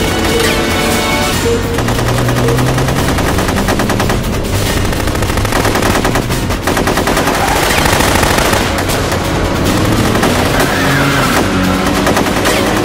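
Rapid automatic gunfire over dramatic action music.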